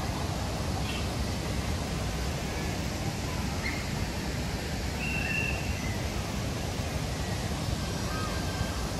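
Outdoor park ambience: a steady low background rumble with a few short bird chirps and whistles scattered through it, one whistle held for about half a second around the middle.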